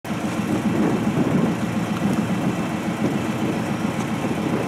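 An engine running steadily, a continuous low rumble.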